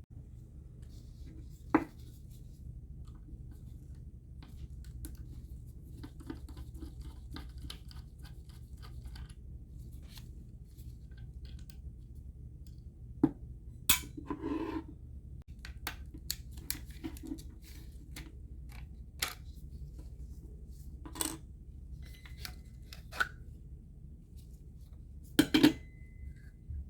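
Small metal parts of a Crown Differoid condenser microphone clicking, scraping and tapping against tools and the bench as it is taken apart, with a few sharper knocks over a low steady hum.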